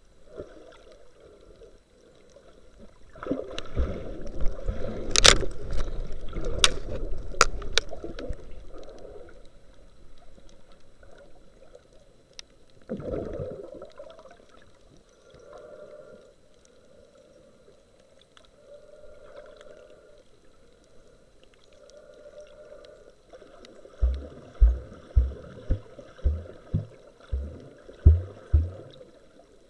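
Muffled underwater water noise heard through a camera held just below the surface while snorkeling, with sloshing and bubbling. A louder churning stretch carries a few sharp clicks a few seconds in. Near the end comes a run of low thumps, about two a second.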